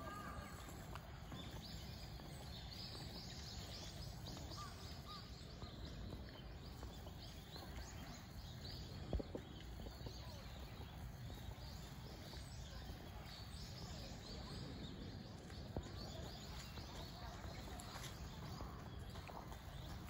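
Faint outdoor ambience: a low steady rumble with scattered faint, high chirps of small birds. A single short knock about nine seconds in.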